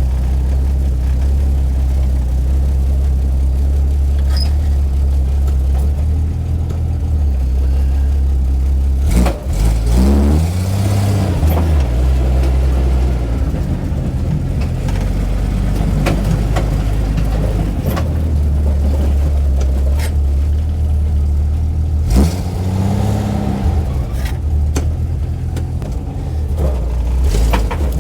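1980 Jeep Cherokee Chief's engine running as the truck is driven, a steady low drone that revs up and settles back twice, about ten seconds in and again about twenty-two seconds in. A few sharp clunks are heard along the way.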